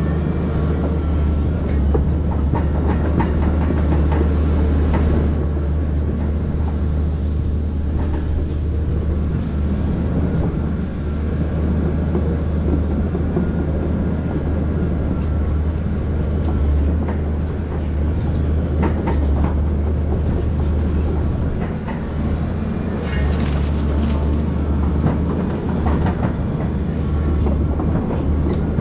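Volvo EC220DL excavator's diesel engine running steadily, heard from inside the cab, with scattered clanks and scrapes as the stick rake drags through soil and roots.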